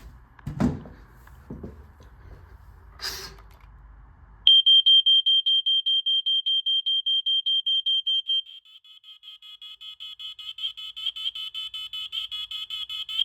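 A few knocks and handling noises, then about four seconds in a household smoke alarm being tested starts a loud, rapid, high-pitched beeping. About four seconds later this gives way to quieter rapid beeping in several tones that keeps going.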